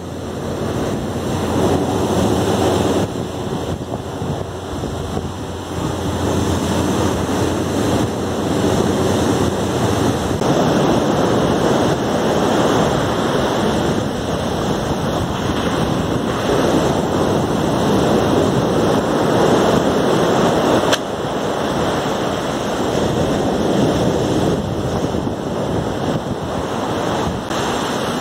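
Ocean surf breaking and washing up a sand beach, a steady rushing noise, with wind buffeting the microphone. The sound changes abruptly a few times.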